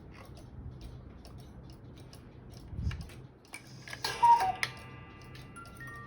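Hekas chalet cuckoo clock with a one-day movement ticking steadily. About four seconds in there is a short clatter and a single two-note call stepping down in pitch, like the clock's cuckoo. Near the end, steady chime-like tones start up again.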